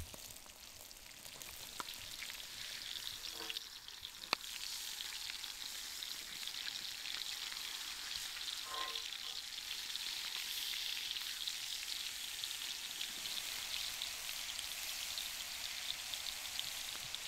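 Ribeye steaks sizzling in a hot oiled pan over campfire coals: a steady crackling sizzle that gets a little louder after about four seconds, with one sharp click about four seconds in.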